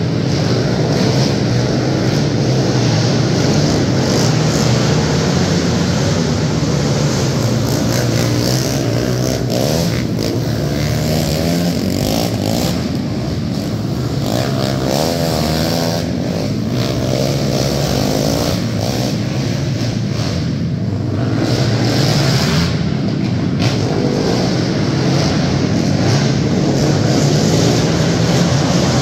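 Several racing quads (ATVs) running laps together, their engines revving up and down as they go around the track, echoing in an indoor arena.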